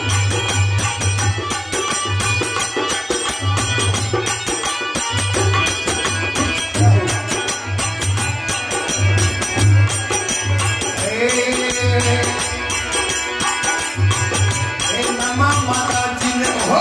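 Indian devotional bhajan music: harmonium, regular low drum beats and a fast, steady jingling percussion rhythm with hand clapping. A singer's voice comes in about eleven seconds in and again near the end.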